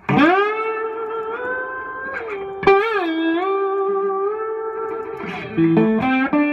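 Intro music: an electric guitar melody of long held notes that slide into pitch and waver, with a quick run of lower notes near the end.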